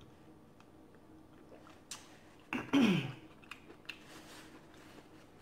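A woman sneezes once into a paper napkin about two and a half seconds in: a sharp burst whose voice drops steeply in pitch. Faint small clicks and rustles come before and after it.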